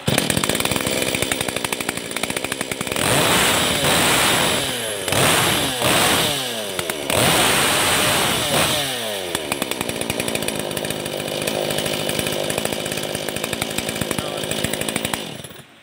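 Yamakoyo Eagle CS5800 two-stroke chainsaw catching on a pull of the starter cord and running, revved several times in the first nine seconds with the pitch rising and falling on each rev, then idling until it cuts out suddenly near the end.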